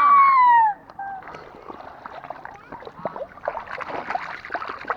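A high-pitched shout rising and then falling ends under a second in. Water splashes and sloshes follow as people wade and grope for fish in a muddy pond, busiest in the last second and a half.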